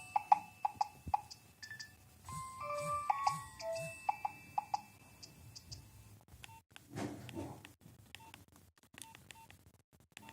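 Nokia 3108 mobile phone playing a synthesized ringtone melody of short, quick notes for about five seconds. After a pause, a run of short, single-pitched keypad beeps with faint clicks follows as the phone's buttons are pressed, with a brief rustle of handling among them.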